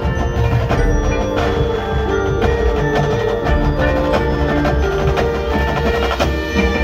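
High school marching band playing, with the front ensemble's mallet percussion prominent: a run of struck, ringing bell and marimba-type notes over the sustained band sound.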